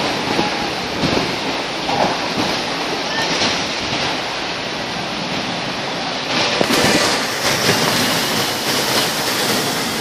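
Heavy rain driven by strong gusting wind in a storm: a dense, steady rushing noise that grows louder about two-thirds of the way through.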